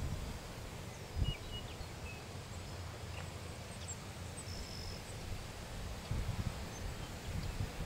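Outdoor ambience: scattered small bird chirps and a short whistled bird note about five seconds in, over an uneven low rumble of wind on the microphone.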